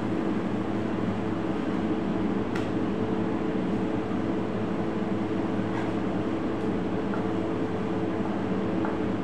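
Steady machine hum with several low steady tones, the loudest thing throughout. A few faint clicks of a knife on a plastic cutting board come through as chicken breast is sliced into strips, one clearer one about two and a half seconds in.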